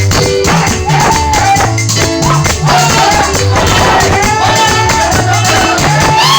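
Loud live praise music: singing over a bass line, keyboard and a steady beat of shaken percussion such as maracas.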